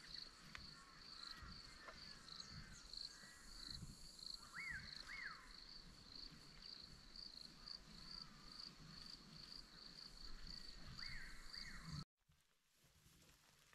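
Faint insect chirping in a steady, even high rhythm, with a bird giving a pair of short rising-and-falling whistles three times. Near the end the sound drops suddenly to a quieter hush.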